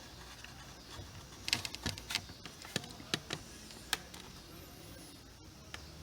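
A scattered run of light, sharp clicks and taps, bunched between about one and a half and four seconds in: small hard plastic parts and tools being handled while epoxy is worked onto a switch module.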